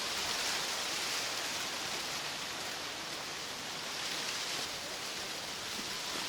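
Steady, even hiss with no distinct events, heaviest in the upper-middle range.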